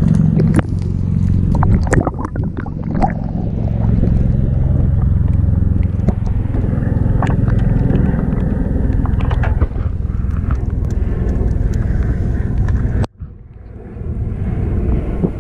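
Steady low rumble of wind and water noise on an outdoor camera microphone on a small boat, with scattered light clicks and knocks. It cuts out suddenly near the end and builds back up.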